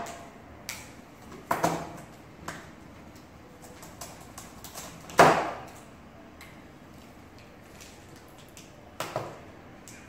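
Plastic packing straps being cut and pulled off a cardboard box: three sharp snaps and scrapes, the loudest about halfway through, with smaller clicks and rustles between.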